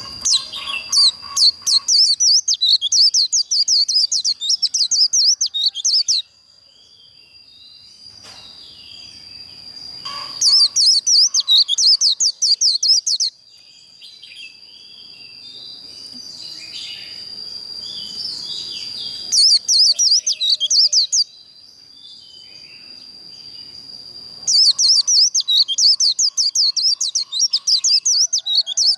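White-eyes singing their rapid twittering 'líu' song in four long bursts, with quieter chirps between the bursts. A steady high-pitched tone runs underneath.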